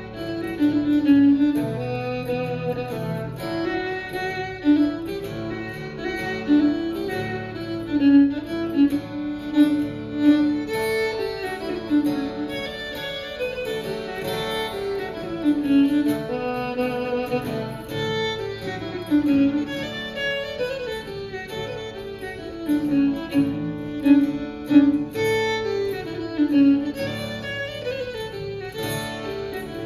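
A fiddle plays the melody of a contemporary Swedish folk tune, with a lower sustained accompaniment underneath.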